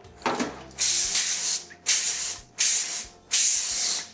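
Aerosol can of cooking spray hissing in four bursts of about half a second to a second each, sprayed onto a foil-lined baking sheet.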